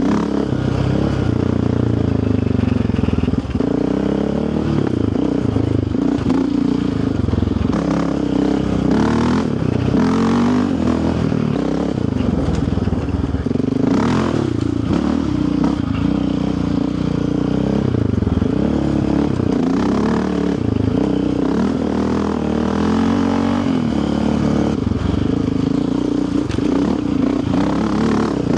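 Yamaha Raptor 700R sport quad's single-cylinder engine running under way, its pitch rising and falling with the throttle, with scattered knocks and rattles.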